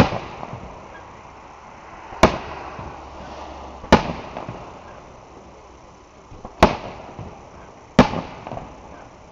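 Aerial firework shells bursting: five sharp bangs one to three seconds apart, each trailing off in an echo.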